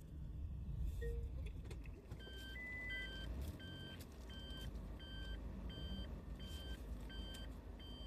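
Reverse-gear warning beeper inside a Suzuki Every Wagon's cabin, a short high beep repeating evenly about once every 0.7 s from about two seconds in, over the low hum of the engine as the van backs into a parking space.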